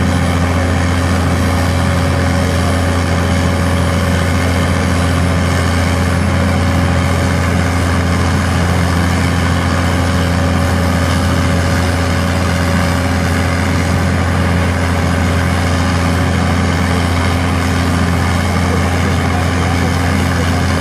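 Bruce SGV-300 hydraulic vibratory pile hammer (34 kg·m eccentric moment) running steadily as it vibrates a steel sheet pile into the ground: a loud, unchanging low hum with a mechanical drone above it.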